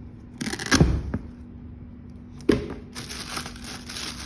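Handling noise from new sneakers and their packaging being moved about: a loud rustling knock about half a second in, another sharp knock about two and a half seconds in, then a steady rustling hiss.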